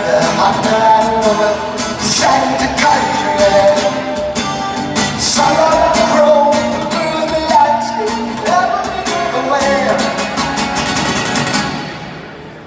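Live strummed guitar with long sung notes over it, dying away near the end.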